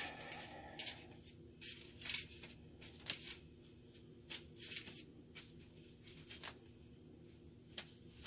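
Faint, short, irregular crunches from the headset bearings of a new Rallye Malice 20-inch bike as its stiff fork is turned back and forth. The crunching is a sign of headset bearings that may have been set extremely tight at the factory.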